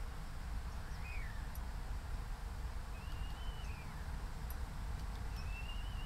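Common starling giving three drawn-out whistles, each gliding up and then down in pitch, about a second in, around three seconds in and near the end, over a steady low rumble.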